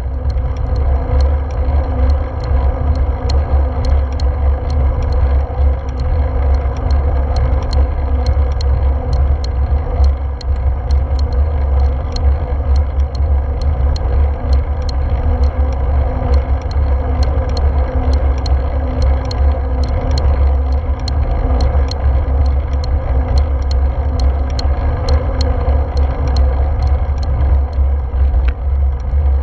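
Road bike riding on asphalt, heard through a GoPro on the bike: a steady low rumble of wind and road vibration, with faint quick ticks throughout.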